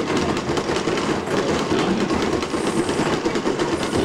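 Steady, loud clattering din of a busy arcade room, a low rumble under many quick rattling clicks.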